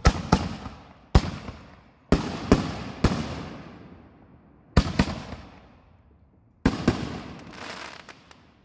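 Aerial fireworks launched from the ground and bursting overhead: about ten sharp bangs, mostly in close pairs, every second or two. Each trails off in a fading crackle.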